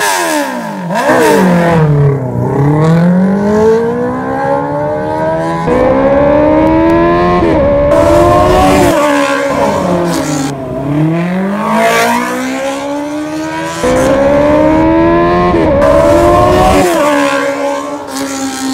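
Honda CB650R's inline-four engine through an aftermarket stainless full exhaust system, its note rising and falling several times with the throttle, with sudden jumps in pitch.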